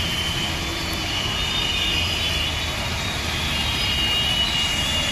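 Steady roar of fast-flowing floodwater rushing along a street, mixed with vehicles in the water.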